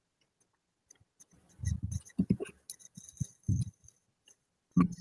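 Soft bumps and rustles of a mobile phone being picked up and handled close to the microphone, a cluster of light knocks in the middle and one more near the end.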